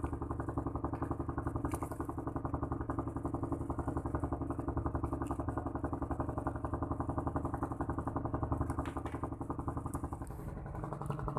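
Ship's lighting generator engine running steadily below deck, a fast, even pulsing hum. Its pitch and loudness dip briefly about ten seconds in.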